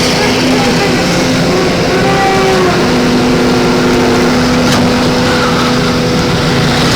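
Backhoe loader excavator's motor running steadily with a constant hum, with small shifts in pitch as it works.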